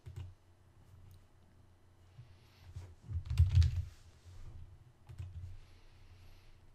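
Computer keyboard typing a short word in a quick burst about three seconds in, with a few separate mouse clicks before and after it.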